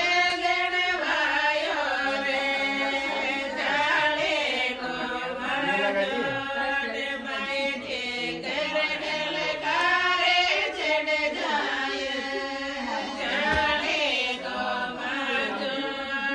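Group singing: several voices chanting a traditional devotional-style song in long, held, wavering notes.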